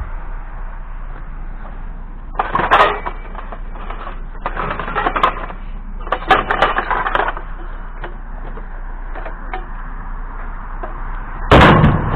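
Hard objects clattering and rattling as they are handled, in four short bursts, the last the loudest.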